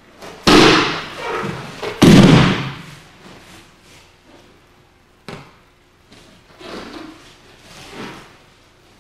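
Two loud, sudden thuds about a second and a half apart, each trailing off in a hall echo: the sounds of a punching attack met with a kotegaeshi wrist-turn throw, the thrown attacker breakfalling onto the dojo mat. A sharp single knock follows a few seconds later, then softer movement on the mat.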